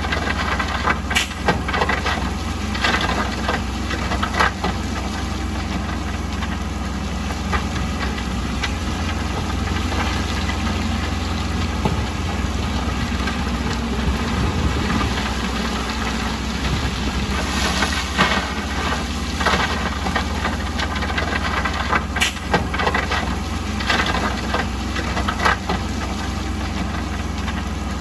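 Heavy diesel construction machinery engine running steadily, with short clanks and knocks scattered through, several close together near the middle.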